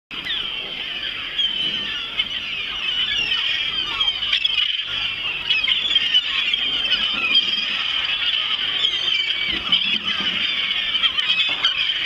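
A large flock of gulls calling all at once, many high cries overlapping in a continuous din.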